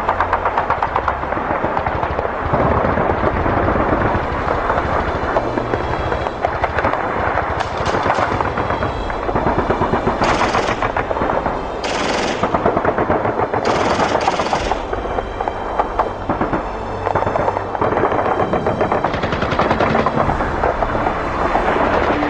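Battle sound effect: sustained rapid machine-gun fire, with several louder blasts near the middle.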